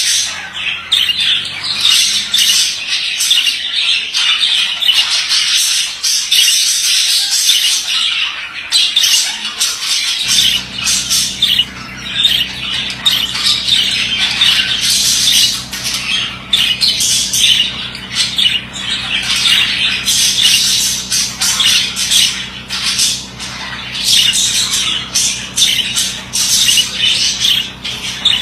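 Male budgerigar warbling and chattering without a break, a fast run of chirps, squawks and clicks. A steady low hum joins in about ten seconds in.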